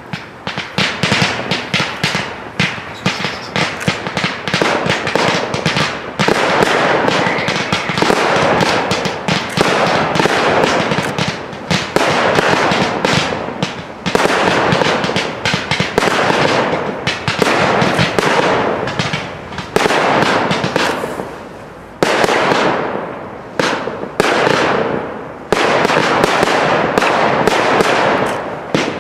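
Professional fireworks display firing without pause: dense, continuous crackling and popping of bursting stars, with fresh loud volleys starting suddenly every couple of seconds and trailing off.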